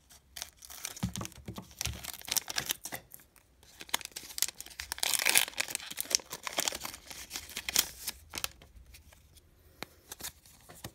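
A Pokémon booster pack's foil wrapper being torn open and crinkled by hand, with crackling throughout and a louder, longer rip about five seconds in.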